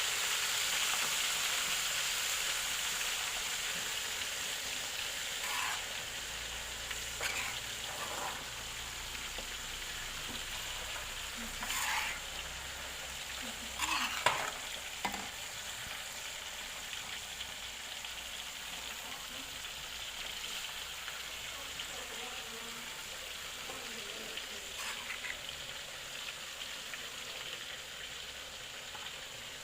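Small wader fish deep-frying in hot oil: a steady sizzle that slowly dies down, with a few short knocks and scrapes near the middle.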